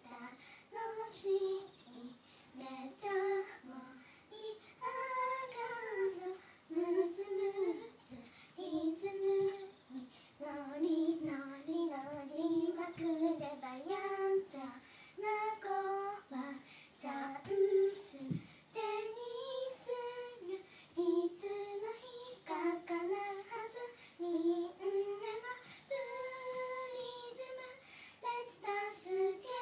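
Young girls singing a song together without accompaniment, the melody moving in short phrases that rise and fall.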